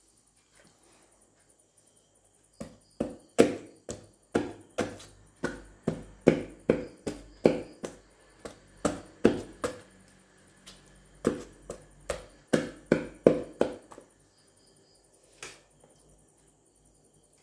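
A kitchen knife chops through raw chicken bone onto a wooden cutting board. It strikes in two runs of sharp, even blows, about two to three a second, with a short pause in the middle, and one last blow near the end.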